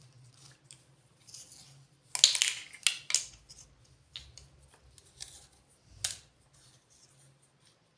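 Small plastic toy kitchen pieces and their packaging being handled: a loud burst of crinkling and clicking about two seconds in, then scattered sharp clicks and taps.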